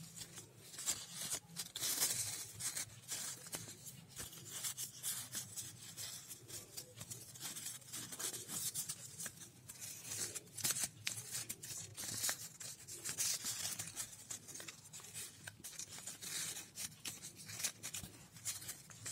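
Paper strips rustling and crinkling close up as they are folded, slotted together and pulled tight by hand into a paper pinwheel, in a run of irregular small crackles.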